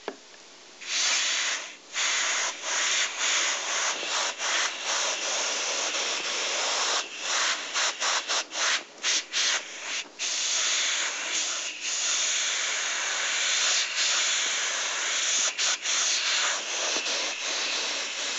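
Double-action airbrush spraying paint in short passes while shading: a steady hiss broken by many brief stops, most frequent between about seven and ten seconds in, as the trigger is let off and pressed again.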